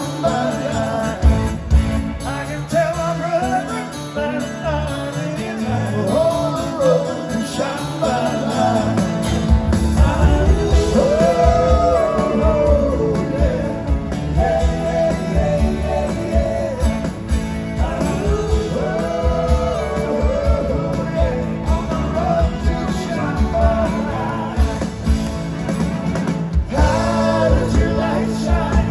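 Live rock band music: a lead voice sings over guitar, bass and drums, and the low end and beat fill out about nine seconds in.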